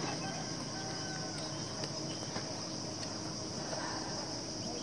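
Steady, high-pitched drone of an insect chorus, with a few faint ticks.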